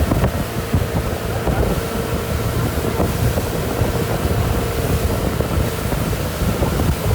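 Motorboat running steadily on the water, its engine a constant hum under heavy wind buffeting on the microphone and rushing water.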